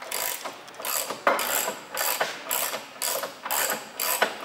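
Hand ratchet wrench clicking in short runs, about two a second, as it is swung back and forth to undo bolts under the car.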